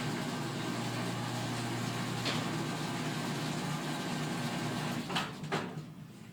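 The locomotive's 24 horsepower Onan engine running steadily, with a few sharp clicks; the sound falls away just before the end.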